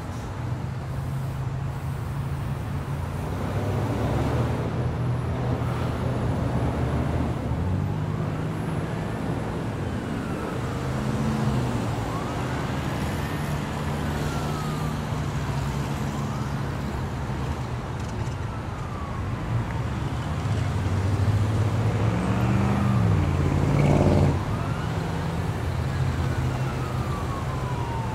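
Emergency vehicle siren wailing, its pitch rising and falling over and over from about eight seconds in, over a low engine and traffic rumble. The rumble peaks and cuts off suddenly near the end.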